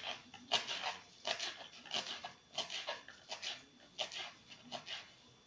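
Kitchen knife chopping leafy chakvat greens on a wooden cutting board: irregular sharp knocks of the blade striking the wood, about two to three a second.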